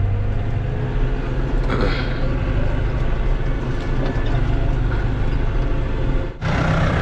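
Massey Ferguson tractor's diesel engine running steadily under way, heard from inside the cab. About six seconds in the sound cuts abruptly to a hissier engine sound from outside the cab.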